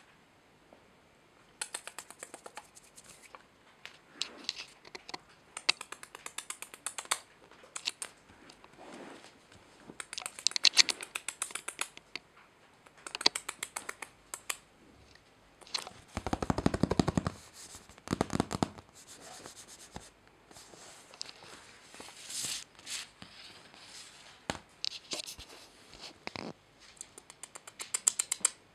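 A British Shorthair kitten's claws ticking and scrabbling on a shiny plastic backdrop sheet, in rapid crackling clusters with short pauses between. A heavier, deeper scuffle comes about sixteen seconds in.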